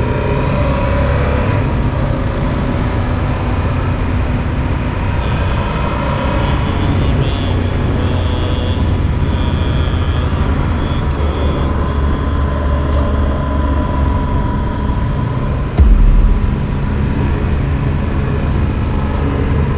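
Yamaha Super Ténéré motorcycle's engine running steadily under way, with wind noise on the action-camera microphone. A brief loud low rumble comes about 16 seconds in.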